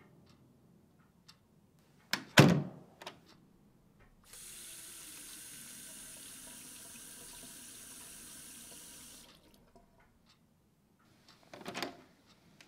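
A water tap running steadily for about five seconds and then shut off. Before it comes a loud thud, with a few small clicks after it, and near the end there is another short clatter.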